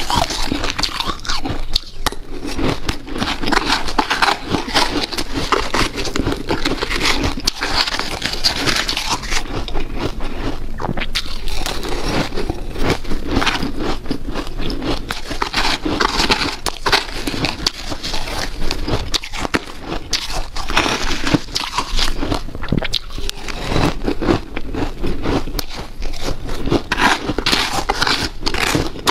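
Close-up crunching of powdery, snow-like ice being bitten and chewed: a dense, continuous run of crisp crackles and sharp squeaky crunches.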